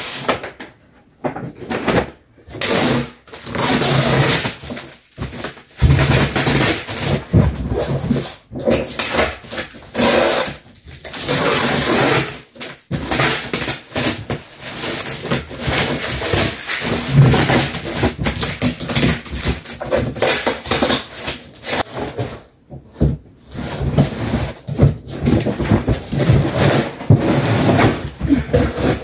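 Large sheets of packing paper crinkling and rustling as they are pulled from a cardboard moving box, in irregular bursts with a few short pauses.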